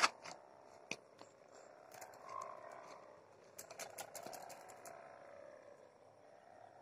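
Kite hummer (sendaren) whose packing-strap ribbon vibrates in the wind, giving a faint, buzzing drone: the 'diesel' sound. It swells and fades twice and is dotted with a few sharp clicks.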